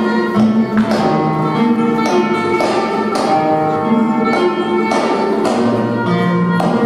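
Flamenco music in the slow tientos form, with plucked guitar strums marking the beat under held melodic notes.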